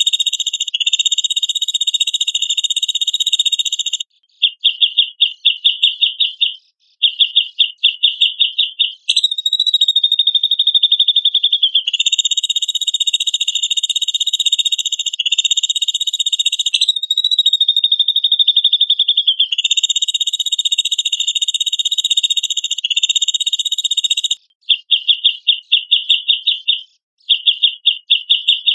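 Cucak jenggot (grey-cheeked bulbul) calling in a loud, fast, buzzy chatter held at one high pitch, broken at times into separate bursts of rapid pulsed trills; the phrases repeat in a loop as a bird-training track.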